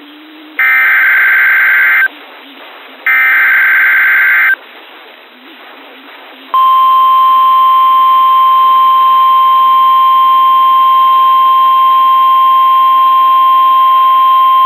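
Emergency Alert System SAME header: two harsh digital data bursts, each about a second and a half long and a second apart, the last of the three header bursts. About two seconds later the steady single-pitch NOAA Weather Radio warning alarm tone comes on and holds, signalling the start of a new warning broadcast.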